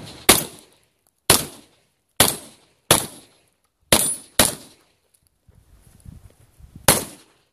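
Saiga-12 semi-automatic 12-gauge shotgun fired seven times, single shots roughly a second apart, with a pause of about two and a half seconds before the last shot.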